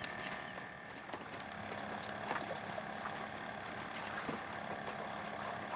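A motor running steadily with a low, even hum, under faint scattered ticks and light background noise.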